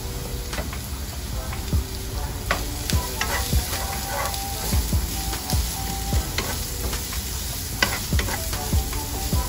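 Garlic, ginger and green onion sizzling in hot oil in a frying pan as they are sautéed and stirred, with a steady hiss and a utensil knocking against the pan at irregular moments.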